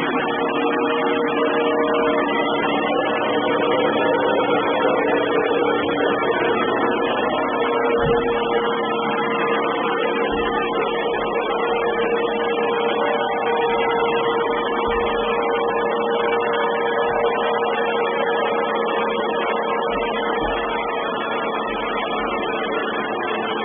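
Robot vacuum cleaner running: a steady motor whine with a strong midrange hum over fan noise, heavily distorted by the camera's microphone. A few brief low thumps come through.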